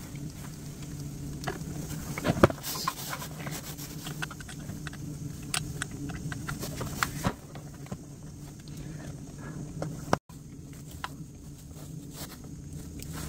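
Handling noise from a Hulkman 85 jump-starter pack being lifted from its zippered case, set back and plugged in with a charging cable: scattered plastic clicks and knocks, the sharpest about two and a half seconds in. A steady low hum runs underneath.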